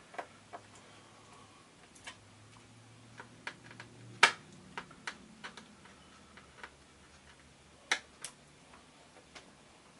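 Irregular light clicks of a small screwdriver and tiny screws as the screws are undone one by one from a Commodore 64 keyboard. One sharper click comes a little after four seconds in, and two close together just before the end.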